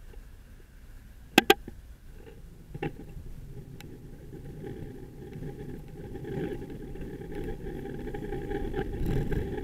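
Low rumble of a bicycle riding along a city street, picked up by a camera mounted on the bike, growing louder as the ride goes on. Two sharp knocks come close together about a second and a half in.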